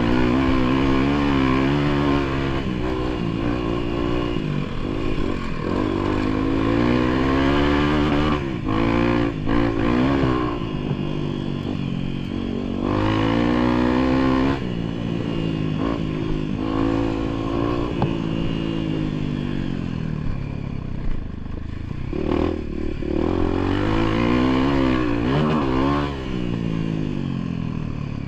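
Motorcycle engine revving up and falling back over and over while it is ridden off-road, with clattering and scraping.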